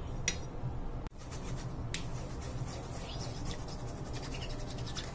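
Silicone spatula stirring and scraping a liquid egg mixture around a stainless steel bowl, with a few sharp clicks against the metal, over a steady low hum.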